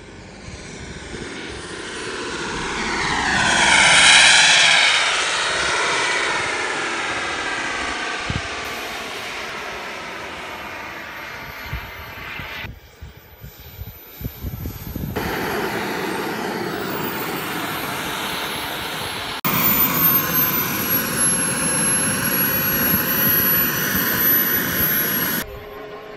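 Small gas-turbine engine of a radio-controlled model jet on low flybys: a whining rush that swells to a peak about four seconds in as the jet passes and then fades. It comes back after breaks in the sound, the later pass carrying a high thin whine.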